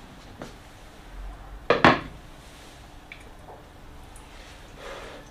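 Clay casserole pot's ceramic lid clattering: a loud double knock just under two seconds in as it is handled and set down. A few light clinks of a ladle in the pot follow.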